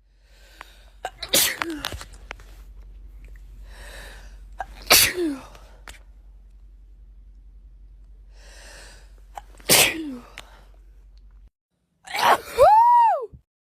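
A person sneezing four times, each sneeze preceded by a short hissing in-breath. The first three end in a brief falling voiced tail; the last is the loudest, with a high voiced cry that rises and falls.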